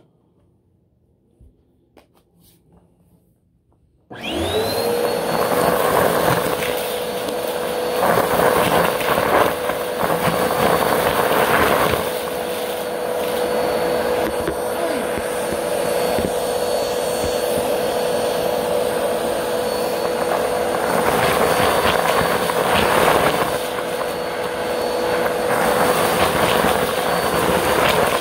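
Upright bagless vacuum cleaner switched on about four seconds in, after a few faint clicks: its motor whines up to pitch within a moment and then runs at a steady pitch. The rush of air through the hose swells and dips as the nozzle is worked over a pile of confetti and glitter on the carpet.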